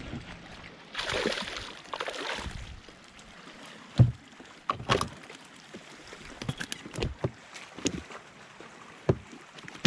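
Water splashing for a couple of seconds, then a run of sharp knocks and clicks, like gear and tackle bumping against a fishing boat.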